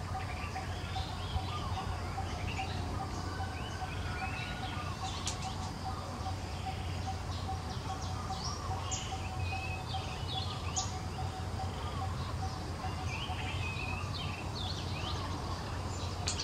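Birds chirping and calling over a steady low background hum, with a faint pulsing tone running through it.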